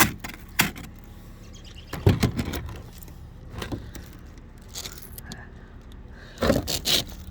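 A sheet of ice being pried and broken off a car, cracking and clattering in sharp bursts: near the start, about two seconds in, and again near the end.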